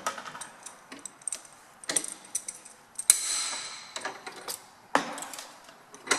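Metal clicks and knocks as a foil blade is re-clamped in a bench vise, with one sharp metallic clank about three seconds in that rings briefly and fades, and another knock about two seconds later.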